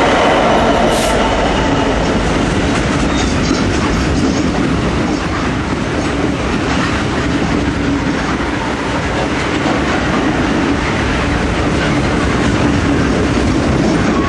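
A Class 66 diesel freight train passing close by at speed: the locomotive goes by at the start, then its wagons roll past with a steady rumble and a clickety-clack of wheels over the rail joints.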